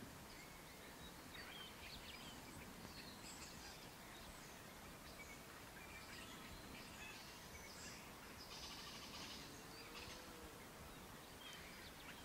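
Faint, steady outdoor hiss with scattered distant high chirps and calls from prairie wildlife. A short rapid run of repeated chirps comes about eight and a half seconds in.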